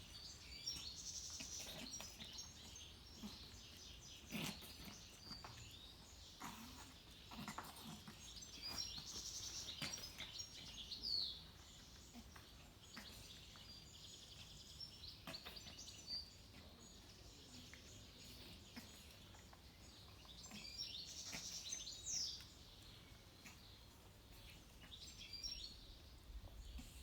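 Small birds chirping faintly in short clusters, with a couple of quick falling calls, over quiet outdoor background noise and a few soft knocks.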